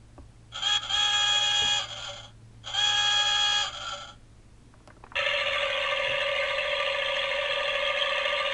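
Battery-powered Animal Planet toy boat's electronic sound effects, set off by its buttons: two steady electronic tones of about a second each, then from about five seconds in a steady whirring sound that runs on.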